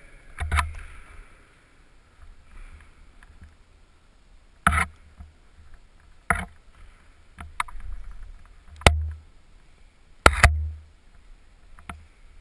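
Irregular sharp knocks and clicks, about seven, several with a low thud, from a climber's hands and shoes striking the holds and wall. They are picked up close by a helmet-mounted camera. The loudest pair of knocks comes near the end.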